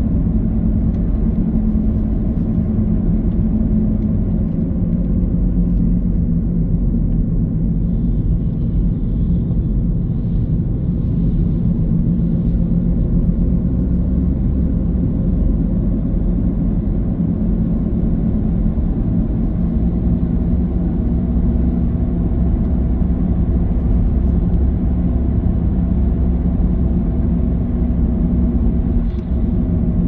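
Car driving at a steady speed: a steady low rumble of engine and tyres on the road.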